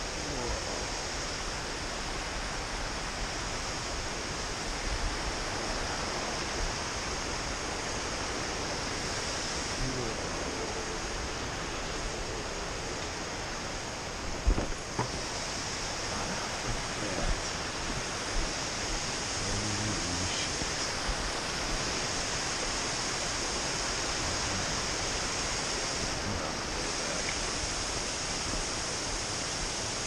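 Small waterfall and creek rushing over rocks, a steady wash of falling water, with a few brief knocks around the middle.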